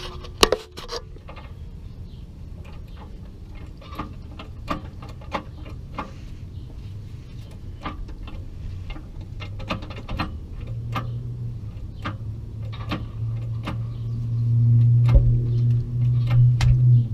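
Socket ratchet clicking in short runs while bolts are driven into a transmission's bell-housing flange. About ten seconds in, a steady low hum comes in and grows louder near the end.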